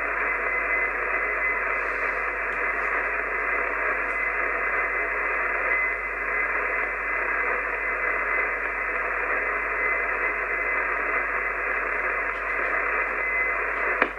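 Steady hiss and static from an Icom IC-751 HF transceiver receiving an open single-sideband channel on 6516 kHz with no station transmitting, with a faint steady whistle under the noise.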